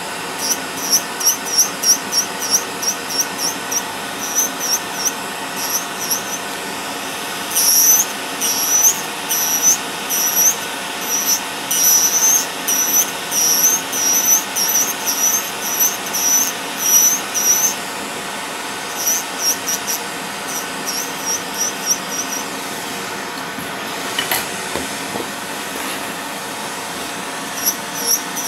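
Podiatry nail drill grinding thickened, fungus-infected toenails: the handpiece motor runs steadily while the burr skims the nail in quick passes, giving runs of short high-pitched squeaks, several a second. The squeaks thin out for a few seconds about two-thirds through.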